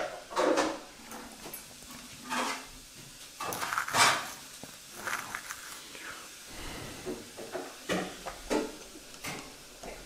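Irregular small clicks and taps of a bare GoPro circuit board and soldering tools being handled and set down on a bench, the loudest about four seconds in.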